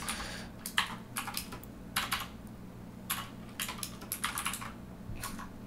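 Typing on a computer keyboard: irregular key clicks, singly and in short runs with pauses between, over a faint steady low hum.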